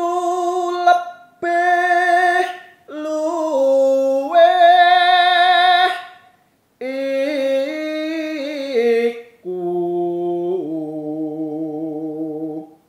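A man sings a Javanese macapat verse, tembang sinom, solo and unaccompanied. He holds long, slowly gliding notes in about five phrases broken by short breaths, and the last phrase drops lower.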